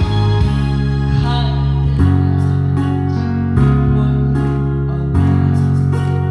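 Song accompaniment with sustained chords and plucked guitar over a bass line that moves to a new note every second and a half or so.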